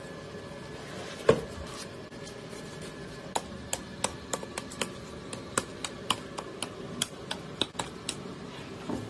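A long knife blade clicking sharply again and again as it is drawn along a large tuna's backbone, cutting the loin away from the vertebrae, about two or three clicks a second. About a second in there is one heavier knock.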